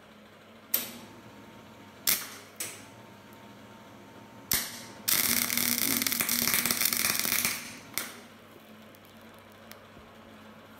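Arc of an old Elektra Beckum MIG welder running gasless flux-cored wire. Four short arc strikes crackle and die, then a steady crackling, spitting bead runs for about two and a half seconds, then one last short strike. The machine is at voltage step 6 with wire feed 20, which the welder judges as enough current but too much wire.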